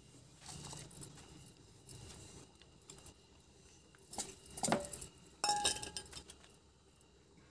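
Whole spices scraped and rustled by hand from a stainless steel bowl into a steel mixer-grinder jar, with a few light metal-on-metal clinks about four to six seconds in, one of them ringing briefly.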